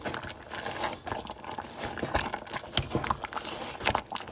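Wire potato masher working through boiled potatoes and cream in a stainless steel pot: a quick, irregular run of soft thumps and clicks, several a second.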